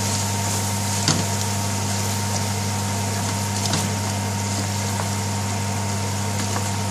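A wooden spoon stirs onions and spices in hot oil in an aluminium pot, with a light sizzle. The spoon knocks sharply against the pot about a second in and again near four seconds. A steady low hum runs underneath.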